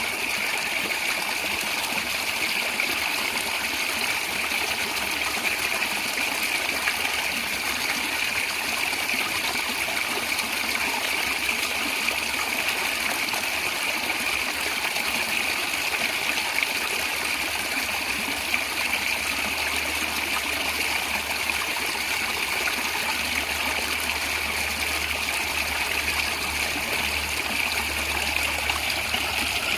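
A natural stream gurgling and trickling steadily over rocks.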